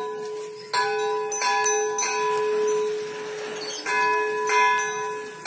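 A metal temple bell struck five times, the same pitched tone ringing on between strikes. The strikes come in two quick runs with a pause of about two seconds between them.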